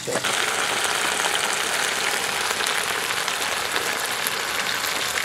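Meat frying in a wok: a steady crackling sizzle that comes up sharply at the start and then holds even.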